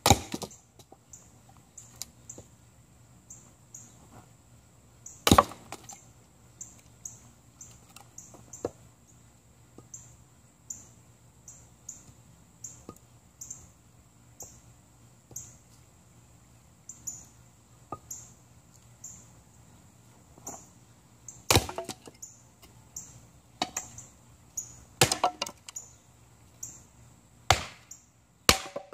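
Snow & Nealley axe splitting kindling on a wooden chopping block: sharp single chops, far apart early on and coming closer together near the end, with lighter knocks of wood between them.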